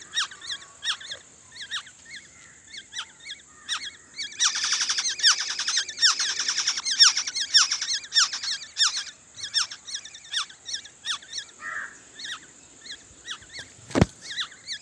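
Nestling songbirds begging at the nest: a stream of short, high, downward-sliding cheeps, several a second, that swells into a dense, rapid chorus from about four to seven seconds in and then thins out. A single sharp knock sounds near the end.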